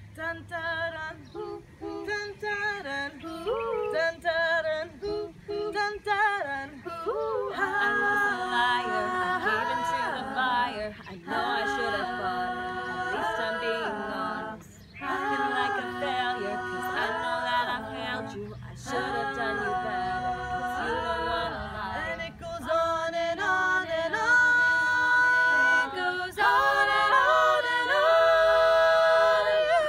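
Small group of girls singing a cappella in close harmony, several voices on separate parts with no instruments. The singing grows fuller and louder about eight seconds in and again near the end.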